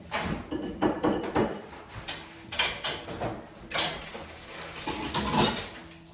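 Household handling noises: an irregular run of rustles, light knocks and clatters, a few each second.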